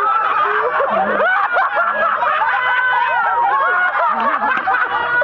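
Several people laughing loudly together, their voices overlapping.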